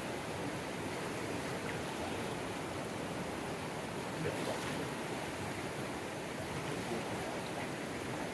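Steady, even rush of a river running high in flood.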